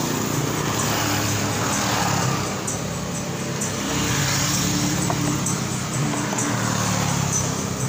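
An engine running steadily, its pitch drifting slightly up and down.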